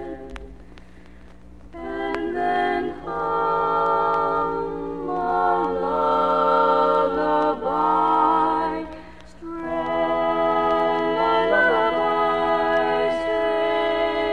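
Women's barbershop quartet singing a cappella, held chords in close four-part harmony. The singing is softer for about the first two seconds and breaks briefly about nine seconds in.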